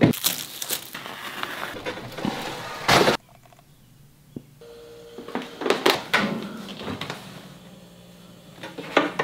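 A mini fridge being handled during unpacking: rustling packaging and knocks, with a louder clatter about three seconds in. After that it goes quieter, with a brief steady tone and a few scattered clicks as the fridge's glass door is worked.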